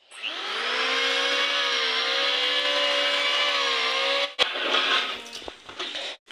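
Electric hand planer switched on, its motor whining up to speed and running steadily while it cuts along a wooden plank, the pitch sagging a little under load. It stops abruptly about four seconds in, followed by a sharp knock and lighter clattering of the wood being handled.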